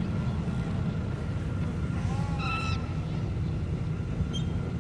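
Steady low rumble of a sci-fi desert town ambience. About halfway through comes a brief pitched creature call: a short arching tone, then a higher chirp.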